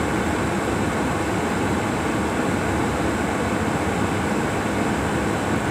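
Car air-conditioning blower running flat out, a steady even rush of air.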